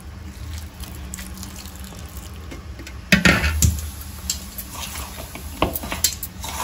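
Spoon clinking and knocking against a bowl while flour is stirred with hot water into jowar roti dough, the sharp clinks starting about three seconds in. A steady low hum runs underneath.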